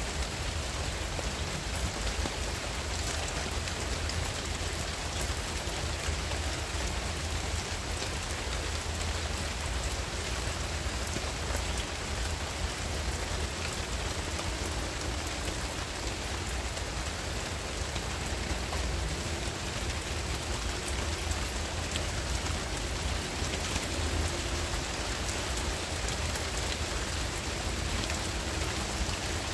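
Steady rain falling on palm fronds and broad garden leaves, with many small drop ticks and a low rumble underneath.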